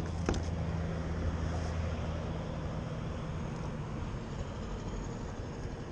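A low, steady engine hum that fades out about halfway through, over wind and water noise. A couple of sharp clicks come right at the start.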